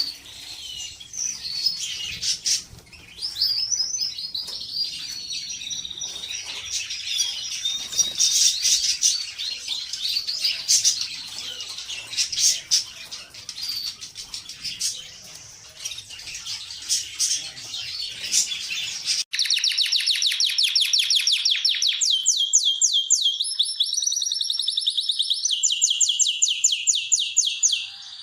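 Canaries singing: warbling song with scattered sharp clicks, then about two-thirds of the way through it cuts suddenly to a cleaner, louder run of fast, evenly repeated trills.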